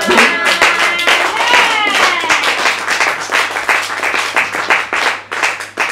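Church congregation clapping together in a steady rhythm, with voices calling out over it near the start.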